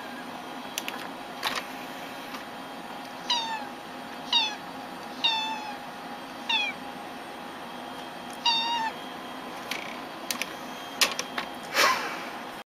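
A domestic cat meowing: five short, high meows that each fall in pitch, spaced roughly a second apart.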